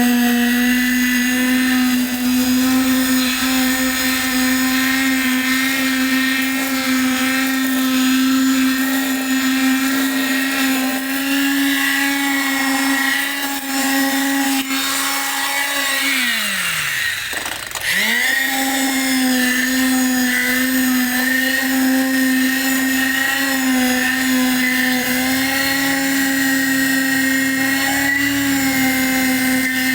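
Motor of a vibrating machine running steadily with a loud, even hum. About sixteen seconds in its pitch drops steeply, as if the motor slows almost to a stop under load, then climbs back up to full speed within about two seconds.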